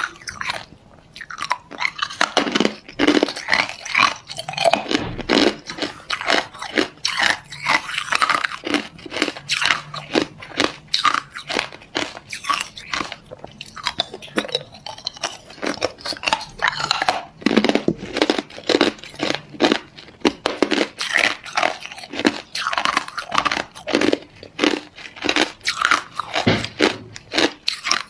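Hard ice being bitten and chewed: a fast, uneven run of sharp crunches and cracks, several a second, after a quieter first couple of seconds.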